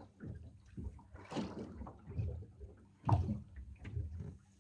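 Small waves lapping and slapping against the hull of a drifting boat in irregular splashes, the strongest about a second and a half in and again about three seconds in.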